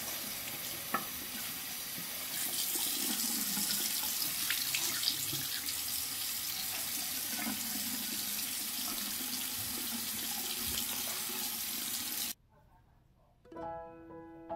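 Water running from a tap into a bathroom sink while a washcloth is rinsed and squeezed under the stream, cutting off suddenly about twelve seconds in. Piano music starts near the end.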